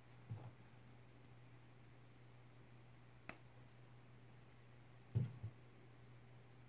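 Small plastic Playmobil figure parts being handled and fitted together: soft low thumps just after the start, one sharp plastic click in the middle as the bow goes into the figure's hand, and a louder double thump about five seconds in as the violin is fitted. A faint steady low hum runs under it.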